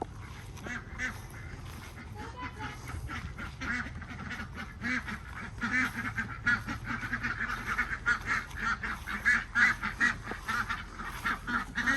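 A flock of domestic ducks quacking in quick, overlapping calls, getting busier and louder over the second half.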